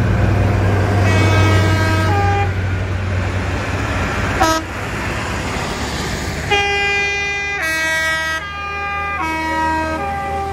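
Diesel tractor engines pass with a low drone that eases after the first couple of seconds. A horn plays a tune of held notes, stepping to a new pitch every half second to a second, with a short toot about halfway through.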